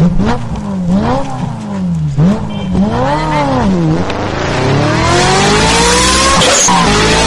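A vehicle engine revving, its pitch swinging up and down several times. From about four seconds in it accelerates with a long rising pitch that drops back once near the end as it shifts up a gear.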